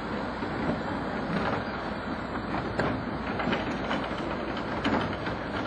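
Electric locomotive rolling slowly past on yard track: a steady running rumble broken by irregular clicks and knocks from the wheels on the rails.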